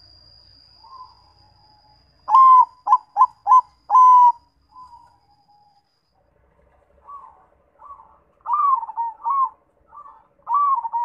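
Zebra doves (perkutut) cooing: a loud phrase of four short notes and a longer final one about two seconds in, then, after a pause, a second run of cooing notes starting about seven seconds in. A faint steady hum runs under the second run.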